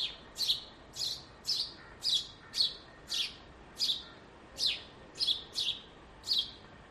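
A bird repeating a short, high chirp that sweeps downward in pitch, about two chirps a second at a slightly uneven pace.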